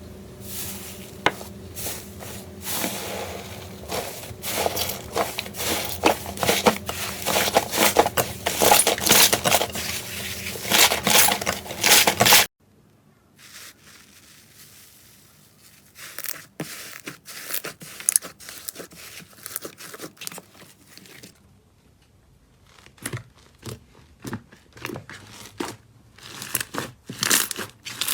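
Slime being squeezed and worked by hand, giving dense crackling and popping clicks. It cuts off suddenly about twelve seconds in; quieter, sparser crackles follow and grow busier again near the end.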